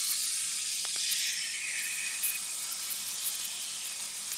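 Seasoned steak searing in a very hot, lightly oiled cast-iron skillet: a steady sizzling hiss with a few faint spatters.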